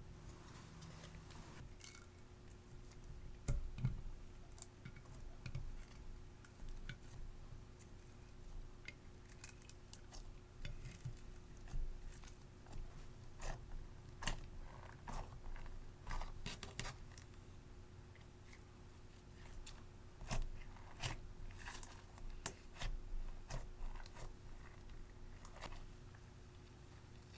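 Sticky slime being squished and stretched by hand, giving irregular small clicks and crackles, with quieter stretches in between.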